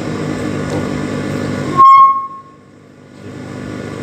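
Active speaker amplifier running with a steady hum and hiss through its loudspeaker, which the technician puts down to a poor-quality power transformer. About two seconds in, a short, very loud feedback squeal rings out for about half a second, then the sound drops away sharply and the hum slowly comes back.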